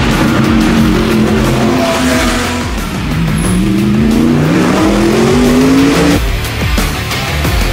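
Mercedes-AMG GT3 race car's naturally aspirated V8 at full race pace: its pitch drops briefly about three seconds in, then climbs steadily under acceleration and cuts off abruptly near six seconds. Music plays underneath.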